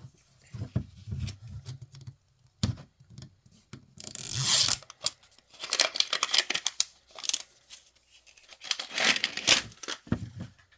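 Packaging being torn open and crinkled by hand, in three loud bursts: the wrappers of a Miniverse capsule ball being opened, with soft handling knocks before them.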